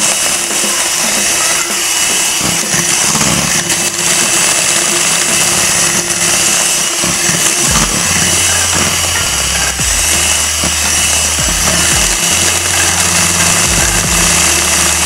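Electric hand mixer running steadily, its beaters whirring through egg-and-sugar sponge cake batter as it is whipped to a pale foam.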